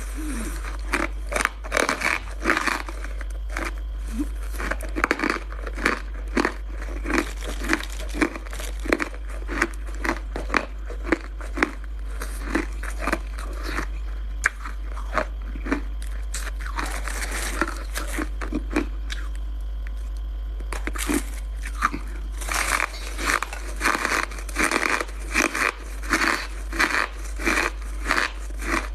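Close-miked biting and chewing of hard frozen Coke ice: rapid, sharp crunches several times a second, thinning out for a few seconds about two-thirds of the way through, over a steady low hum.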